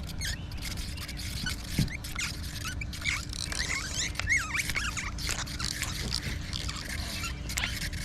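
Small birds chirping in quick, high, curving squeaks, busiest around the middle, over a faint steady low hum.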